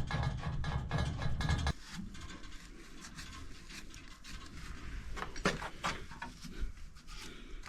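Hands and tools working a new pipe union onto water-tank piping: a low handling rumble for the first second and a half, then scattered light clicks and knocks of metal fittings, the sharpest about five and a half seconds in.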